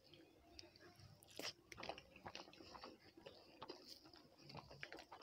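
Faint sounds of eating by hand from a banana leaf: fingers mixing rice and curry, with scattered small clicks and soft crackles.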